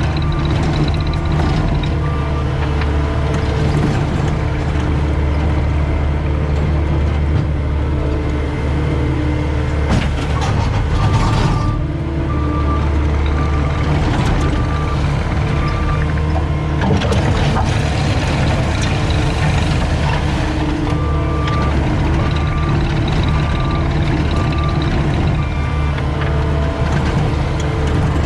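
Cat 259D skid steer's diesel engine running steadily while working. Its backup alarm beeps in spells of about two beeps a second as it reverses.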